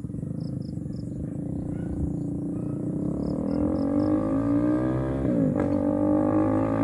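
KTM Duke 390's single-cylinder engine, running through a decat mid-pipe and the stock muffler with the dB killer removed, accelerating closer and growing louder. Its revs climb, dip sharply for a moment about five seconds in, then pick up again. A few short, high insect chirps sound early on.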